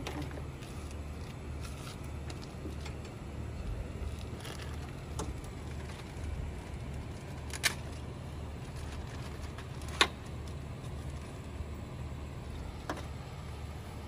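A few sharp clicks and taps of hand tools and door-trim parts being picked up and set down, the loudest about ten seconds in, over a steady low rumble.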